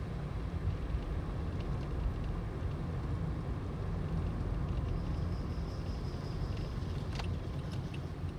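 In-cabin drive noise of a 2012 Toyota Aqua hybrid on the road: a steady low rumble. A faint high-pitched whine joins about halfway through and fades before a single click near the end.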